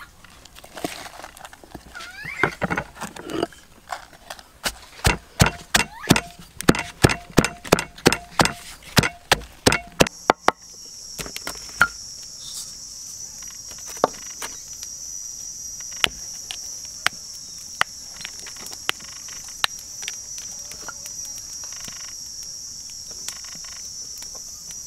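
Wooden pestle pounding spice paste in a wooden mortar, dull knocks about two to three a second that stop about ten seconds in. After that a steady high insect buzzing runs on, with a few scattered knocks.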